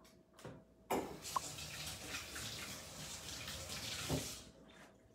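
Kitchen sink faucet turned on about a second in and running while hands are washed under it, then shut off a little after four seconds.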